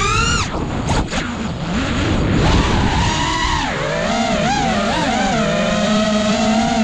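FPV quadcopter's brushless motors whining, the pitch rising and falling as the throttle changes. A rough, rushing noise takes over for about two seconds shortly after the start, then the steady whine returns and wavers.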